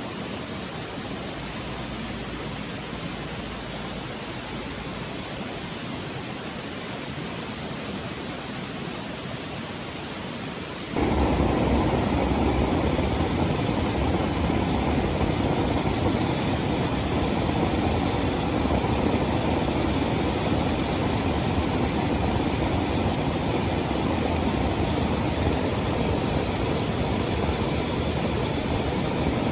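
Petromax HK500 pressure kerosene lantern running with a steady hiss. About eleven seconds in, the sound suddenly becomes louder and deeper, a fuller rushing burn.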